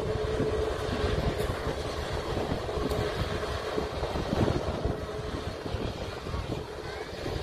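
AirAsia Airbus A320-family jet airliner's engines running on the runway after landing: a steady rushing noise with a held humming tone that fades out about five and a half seconds in.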